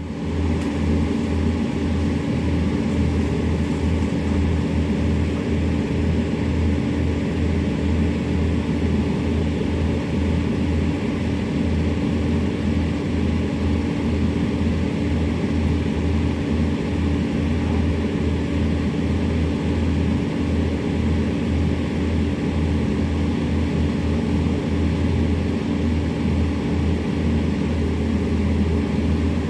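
Excavator diesel engines running steadily under load while one machine tows another out of a peat bog.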